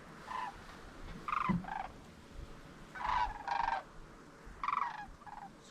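Sandhill cranes calling: several separate rolling, rattling calls in quick succession.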